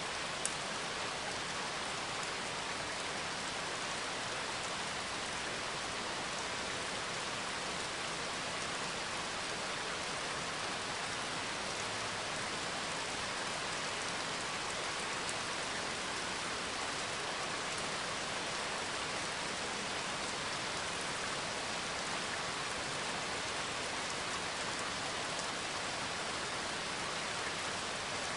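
Steady rain, an even patter that does not change, with a single faint click about half a second in.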